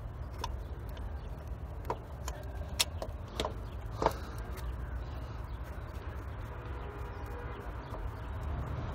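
Irregular metallic clicks and taps of a hand tool and nut as the starter motor's rear mounting nut is fitted, the loudest about three and four seconds in, over a steady low background rumble.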